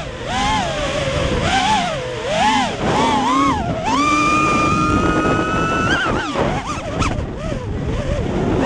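FPV quadcopter's electric motors and propellers whining, the pitch swinging up and down with the throttle. It holds high and steady for about two seconds midway, drops away, and climbs again near the end.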